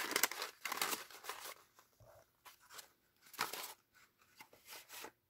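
Cardstock gift box being handled: short dry rustles and crinkles of paper, closely packed at first, then sparser and fainter.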